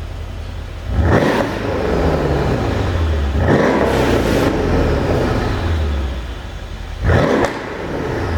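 2013 Mercedes CL63 AMG's twin-turbo V8 idling, then revved three times, each rise in revs followed by falling revs with exhaust pops and crackles, the sound the pop tune is made to give.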